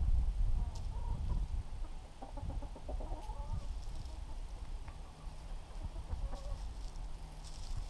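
A hen clucking now and then in short calls, over a low steady rumble.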